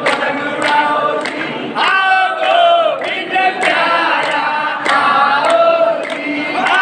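A crowd singing a devotional song together, with steady hand-clapping in time, about two claps a second.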